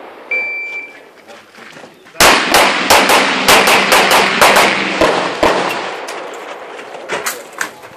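An electronic shot timer's short high beep, then a rapid string of some fifteen handgun shots starting about two seconds later, and two more shots near the end.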